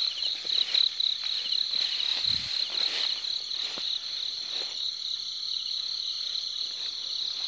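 Steady, high-pitched trilling chorus of night insects, with soft rustling and steps as someone walks through tall grass and a brief low thump a little over two seconds in.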